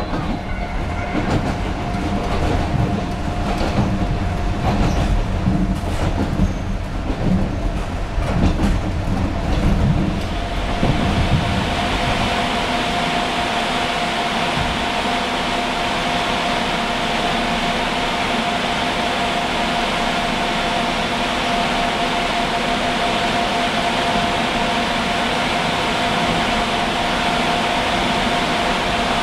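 Kintetsu Utsube Line narrow-gauge electric train with nose-suspended traction motors, heard from the cab as it runs: a heavy low rumble with wheel clicks over the rail joints. About eleven seconds in, the rumble drops away and a steady whine over an even hiss carries on.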